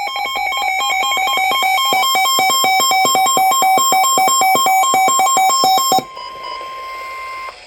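Emergency alert tones: about six seconds of fast electronic beeps, roughly four a second, stepping between pitches like a ringtone melody. These give way to one steady alert tone held for about a second and a half, which cuts off.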